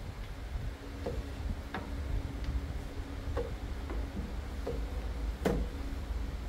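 Chess pieces set down on the board and the chess clock tapped during a fast rapid game: about half a dozen sharp, irregularly spaced clicks, the loudest about five and a half seconds in, over a steady low hum.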